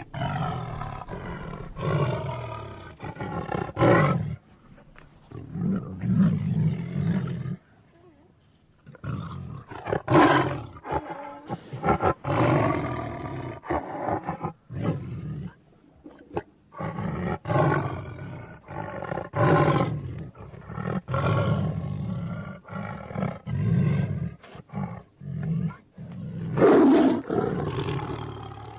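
Tiger roaring and growling: a long run of rough roars, one after another with short pauses, over low rumbling growls.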